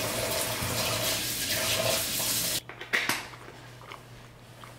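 Kitchen tap running in a steady stream for about two and a half seconds, then shut off abruptly, followed by a couple of light knocks.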